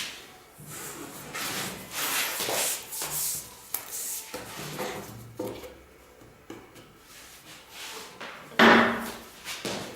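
Festool Domino joiner and its homemade fence being handled: irregular sliding and rubbing scrapes with a few light knocks, and a louder, short scrape a little after eight and a half seconds in.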